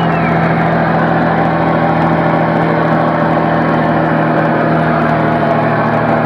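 Scania 113 truck's 11-litre straight-six diesel engine running steadily while driving, heard from inside the cab.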